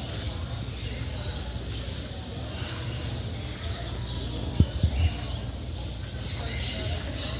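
Many caged birds chirping and calling together over a steady background din, with two short low thumps a little past halfway.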